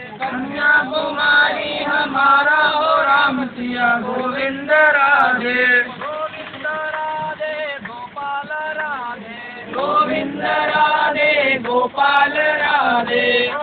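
Voices singing a chant together, with the low noise of the moving vehicle beneath.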